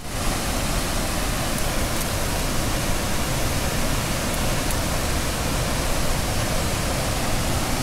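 Floodwater rushing through a dam's open spillway gates in a loud, steady torrent, a dense even rush with no letup.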